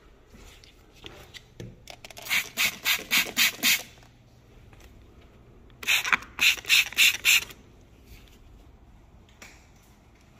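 Two short runs of quick back-and-forth scrubbing strokes on a hard surface, about four strokes a second, each run lasting under two seconds.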